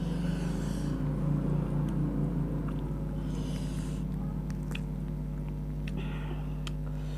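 Close-miked eating sounds: chewing of grilled chicken, with a few short wet smacking patches and small clicks, over a steady electrical hum.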